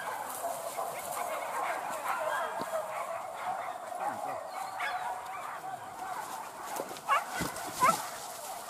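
A pack of hunting dogs barking and yelping together, many voices overlapping into a continuous chorus. Two louder yelps stand out near the end.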